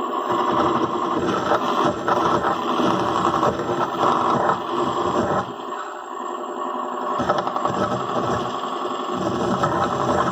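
Car alternator run as an electric motor from an 800 W ebike controller, spinning a steel nut on its shaft with a steady whine while the edge of a file scrapes and grinds the turning nut. The sound wavers as the file bites and dips in level about halfway through.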